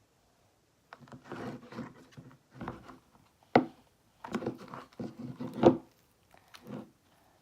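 Slime mixture being mixed in a bowl just after activator has been added: irregular scraping and rubbing strokes, with two sharp knocks about three and a half and five and a half seconds in.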